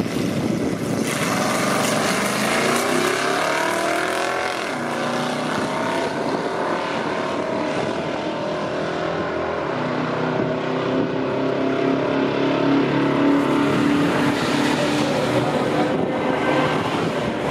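A 1970 AMC Javelin and a 1980 AMC AMX launching side by side at full throttle and accelerating down a drag strip. Engine pitch climbs and breaks off at gear shifts through the first half, then the engines run on at high speed.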